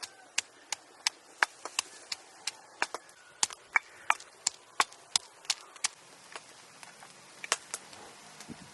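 Knife chopping on a wooden cutting board: a steady run of sharp chops, about three a second, thinning out to a few scattered chops after about six seconds.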